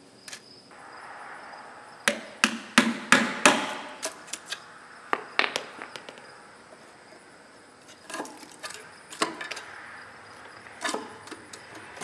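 A hand tool working off the steel dust shield on a crawler's final drive housing. There is a short scrape, then a quick run of sharp metal-on-metal knocks and taps, then scattered single knocks.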